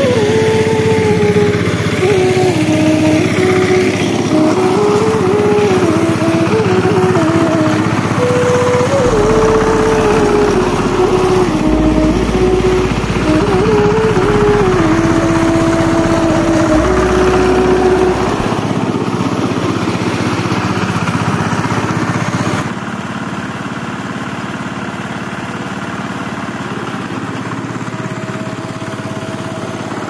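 Power tiller's single-cylinder diesel engine running under load as the tiller is driven over rice straw to thresh paddy, its pitch wavering up and down with the load. About three-quarters of the way through the sound drops and gets quieter.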